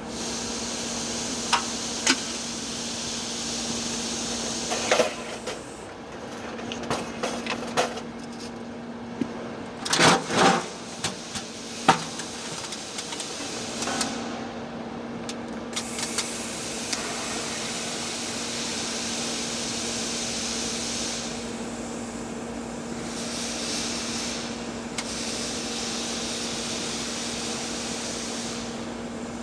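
TIG welding arc on steel pipe: a steady hiss over a constant buzzing hum, with a few sharp ticks and clicks in the first half.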